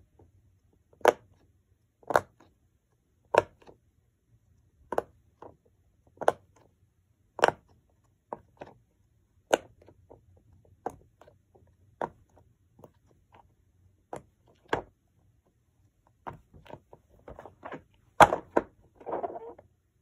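Silicone bubbles of a jumbo bear-shaped pop-it fidget toy being pushed in by hand, each giving a sharp pop, roughly one a second. In the last few seconds the pops come quicker and softer, with one louder pop among them.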